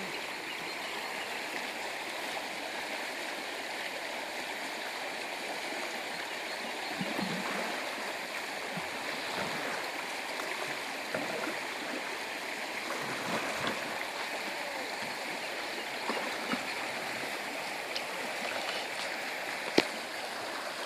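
River water rushing steadily over the current, with one sharp click near the end.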